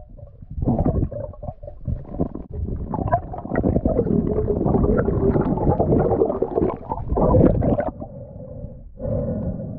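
Muffled underwater rumbling and bubbling from a diver's exhaled air bubbles streaming past an underwater action camera. It is loudest through the middle seconds and eases off near the end into a fainter, steadier hum.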